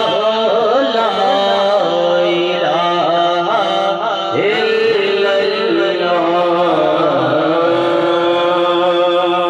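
A man sings a Sindhi naat through a microphone and PA, his voice wavering and ornamented in pitch over a steady held drone underneath.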